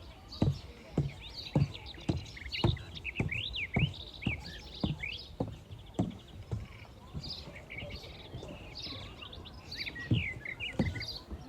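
Songbirds chirping and calling, many short chirps overlapping. Under them, low thuds about two a second for the first half or so, like walking footsteps, with a few more near the end.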